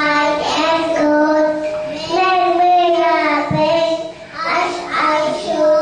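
A young girl singing into a handheld microphone in long held notes, with a short pause about four seconds in.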